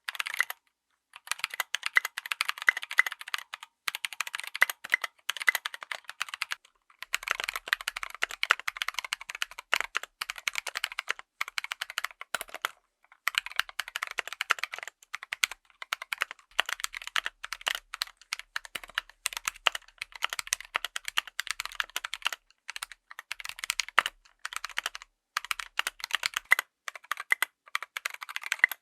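Full-size mechanical keyboard with tactile switches being typed on in quick runs of keystrokes, broken by short pauses of about a second.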